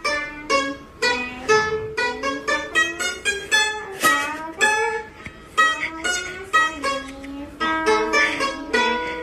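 Background music: a melody picked on a plucked-string instrument, a few separate notes a second, each ringing briefly.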